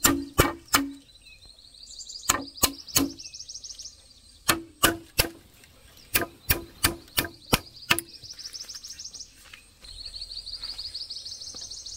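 Repeated sharp strikes of a tool on wood, coming in groups of three to five at about three a second, each with a short ring. Between the groups, insects make a pulsed high buzz that rises in pitch.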